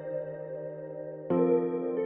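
Ambient background music: sustained synthesizer chords, with a new chord coming in just over a second in.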